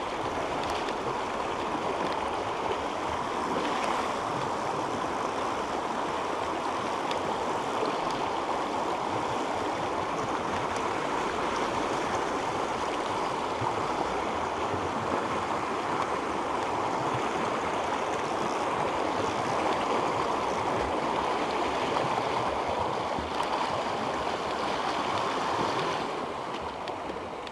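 Shallow rocky stream rushing through white-water riffles, a steady, even rush of water that eases slightly near the end.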